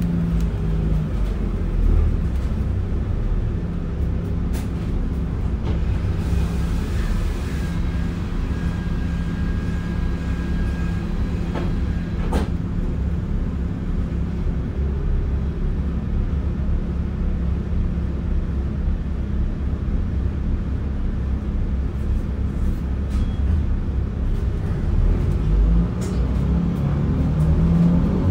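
Inside an Alexander Dennis DL20 double-decker bus on the move: steady engine and road rumble with the air conditioning running throughout, and a single sharp click about twelve seconds in.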